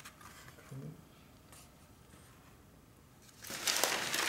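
Paper being handled: a sheet rustling and sliding. It starts loud and rough about three and a half seconds in, after a near-quiet stretch.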